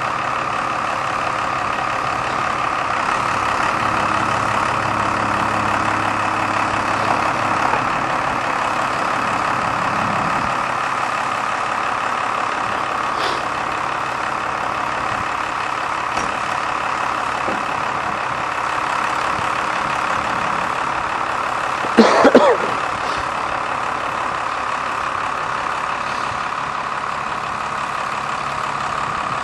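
Cummins 5.9-litre six-cylinder turbo diesel running steadily at idle. About two-thirds of the way through there is a short, loud, rising-pitched sound.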